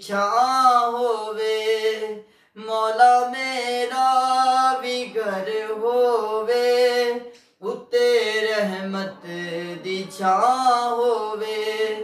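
A man singing an Urdu naat unaccompanied, in three long melodic phrases of held, ornamented notes with short breaks for breath between them.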